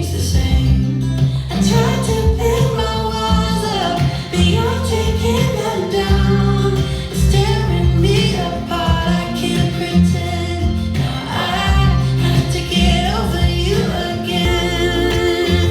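A pop song with a female lead vocal over bass and accompaniment, played back over speakers in a small room as a sound test.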